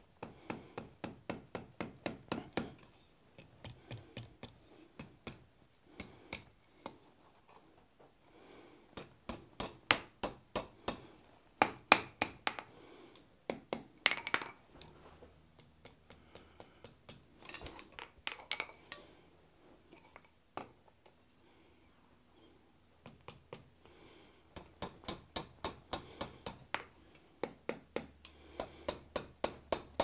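Light hammer taps on a small red-hot steel bar on the anvil, rolling a tight scroll into its end: runs of quick ringing strikes, about four a second, broken by short pauses.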